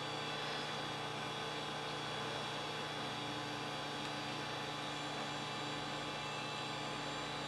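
Steady electrical hum with a faint whir from running computer equipment, unchanging throughout.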